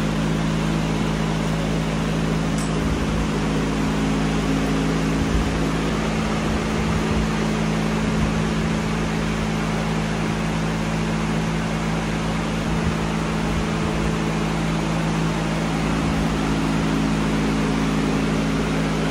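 A fan running: a steady whirring hum with a rushing noise and a low drone under it.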